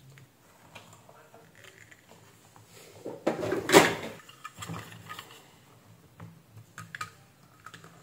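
Handling noises on a workbench: light clicks and rustles as a hair dryer's power cable and multimeter test probes are moved and set down, with one louder scraping rustle a little before halfway and a few sharp clicks later on.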